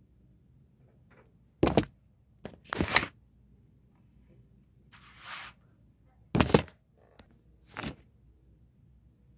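Handling noise: several sharp knocks and thumps, some in quick pairs, with a short rustling scrape about five seconds in.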